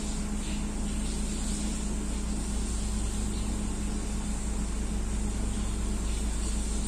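Steady engine drone with a constant low hum and an even hiss over it.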